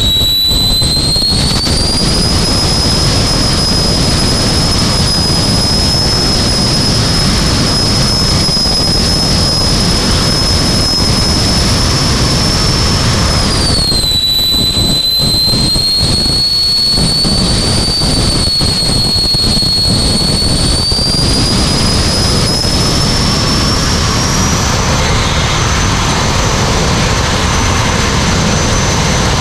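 Jet car's jet engine running, heard from inside the cabin: a loud, steady high whine over a low rumble. The whine's pitch rises about two seconds in, falls sharply about halfway through, then climbs again over the last several seconds as the throttle changes.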